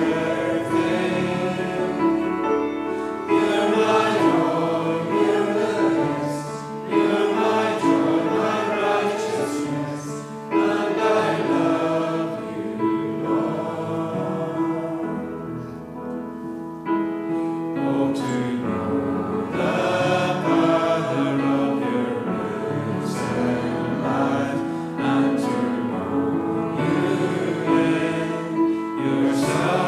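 A choir singing a Christian song in long held phrases, with brief breaks between them.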